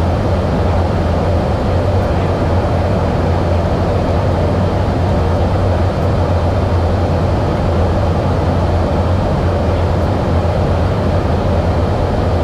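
Steady drone of jet aircraft in flight, heard from inside the aircraft during in-flight refuelling, with a strong low hum under a constant rush.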